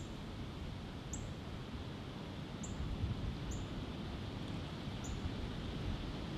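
A small bird repeats a short, high chirp about once a second over a steady low outdoor rumble.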